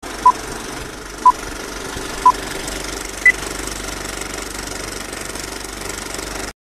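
Film-leader countdown sound effect: a steady film-projector clatter and crackle, with a short beep once a second, three at one pitch and a fourth, higher one. The sound cuts off suddenly near the end.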